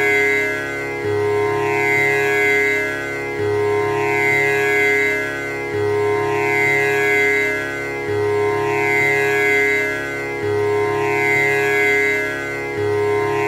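Tanpura drone: its strings plucked one after another in a steady repeating cycle, about every two and a third seconds, each pluck ringing on in a dense wash of overtones.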